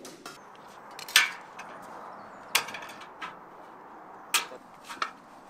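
Sharp metallic clicks of hand metal snips working the edge of a painted sheet-steel flashing strip. There are four loud snaps a second or more apart, the loudest about a second in, with lighter ticks between.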